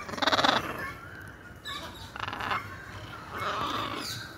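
Macaws squawking: one loud, harsh call at the start, then quieter calls about two seconds in and again near the end.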